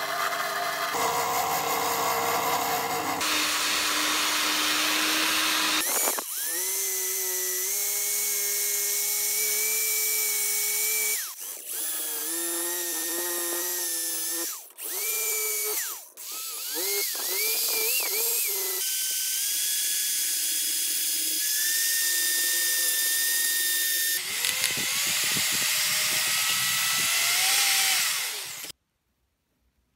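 Wire wheels spinning against rusty metal: first a bench drill press's wire wheel brushing a small vise part, then, from about six seconds in, a cordless drill with a wire-wheel brush scrubbing rust off the cast-iron vise body. The drill's motor whine rises and falls with the trigger, drops out briefly a few times, and cuts off near the end.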